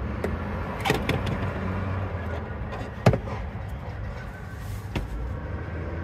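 A few sharp clicks and knocks from handling the Mercedes-Benz Sprinter's fuel-filler flap and cab door, the loudest about three seconds in, over a steady low hum.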